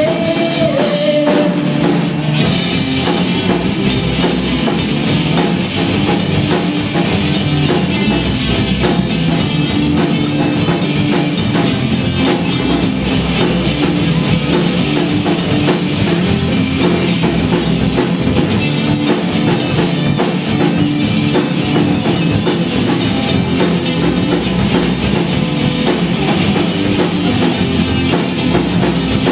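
Live rock band playing loud, with electric guitars, bass and drum kit, in a stretch with no singing for most of it. The cymbals come in brighter about two seconds in.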